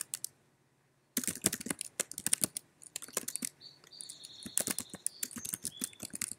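Typing on a computer keyboard: a quick, uneven run of keystrokes that starts about a second in, after a brief silence.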